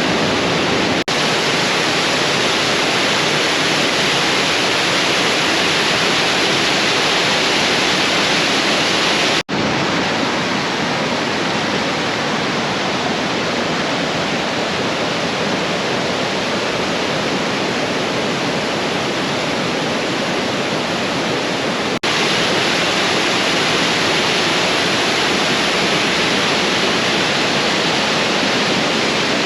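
Loud, steady rush of falling water from Gooseberry Falls, broken by three brief dips where separate shots are cut together.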